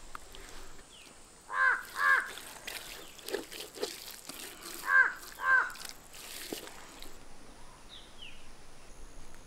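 Crow cawing: two caws in quick succession, then two more about three seconds later.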